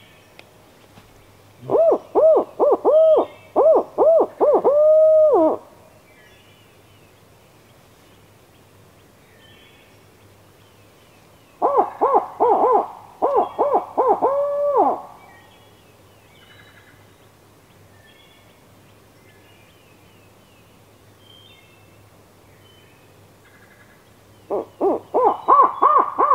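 Owl hooting in three bouts about ten seconds apart. Each bout is a quick run of hoots that ends in a longer drawn-out note.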